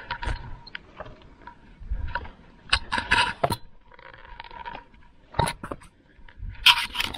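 Irregular scrapes and knocks of footsteps scrambling over rocky ground, loudest about three seconds in and again near the end.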